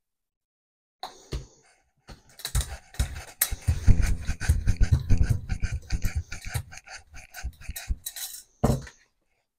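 Hand brayer rolled back and forth over a thin film of acrylic paint on a gel printing plate: a rapid crackling run of fine clicks for several seconds, ending in a louder knock.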